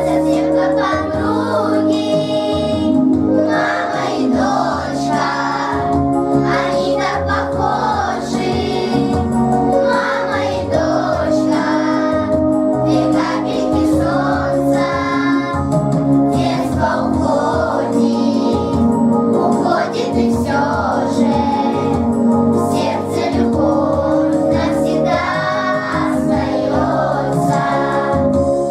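Children singing a song in chorus over instrumental accompaniment.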